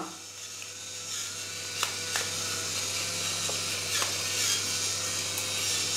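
Pepper mill grinding black peppercorns: a steady grating rasp with a few small clicks, starting about half a second in.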